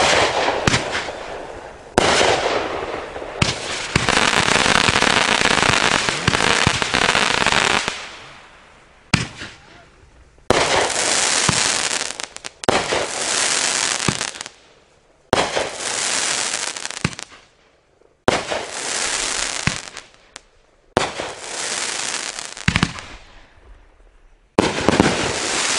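A 500-gram Winda Zombie Driver fireworks cake firing: sharp reports and aerial breaks, with a long loud stretch of shots and hiss in the first part. Then come six separate shots, each starting with a sharp crack and followed by about two seconds of dense crackling hiss.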